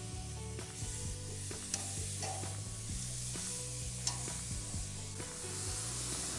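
Marinated pork neck sizzling steadily as it is laid piece by piece on the hot grate of a gas grill, with a couple of light clicks from metal tongs.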